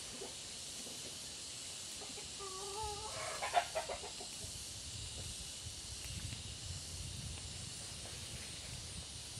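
A chicken clucking: a short wavering call about two and a half seconds in, followed at once by a quick run of clucks.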